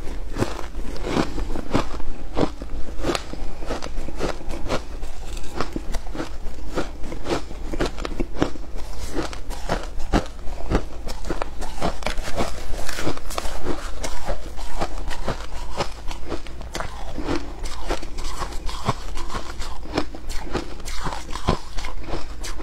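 Shaved ice crunching as it is chewed, a rapid run of crisp crunches, mixed with a metal spoon scooping and scraping through the ice in the bowl.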